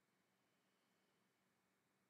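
Near silence: faint room tone with a low steady hiss.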